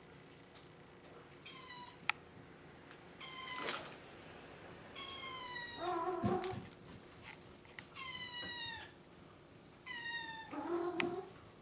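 Domestic cats meowing again and again: about six separate calls, each falling in pitch. Two lower-pitched calls come in about halfway through and again near the end.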